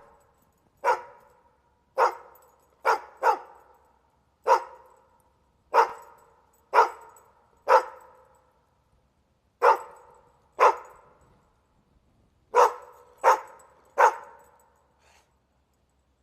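A dog barking, about thirteen single sharp barks at irregular intervals, some coming in quick pairs.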